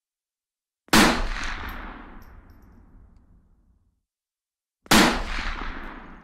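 Two rifle shots about four seconds apart, each a sharp crack followed by a long echoing decay.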